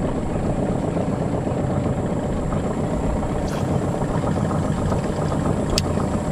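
Boat motor running steadily, a low even rumble, with a sharp click near the end.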